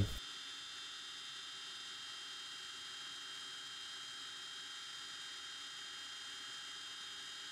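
Steady faint hum and hiss with a few thin, high, unchanging whine tones; no distinct events.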